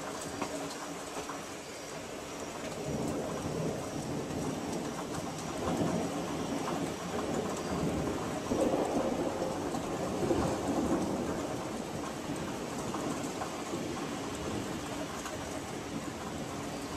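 Steady rain with distant thunder rolling underneath, the low rumble swelling about six seconds in and again for a few seconds near the middle.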